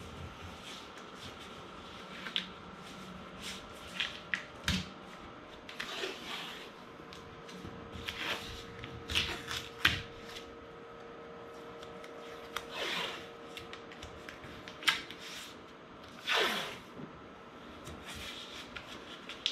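Blue painter's tape being pulled off the roll and pressed down by hand around a plastic headlight lens: a series of short scratchy rips and rubs with a few light clicks and taps between them.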